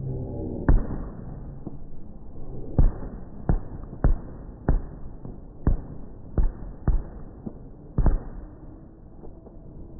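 Aerial firework shells bursting overhead: about nine sharp booms at uneven intervals over a low rumble. The loudest come about a second in, near the three-second mark and about eight seconds in.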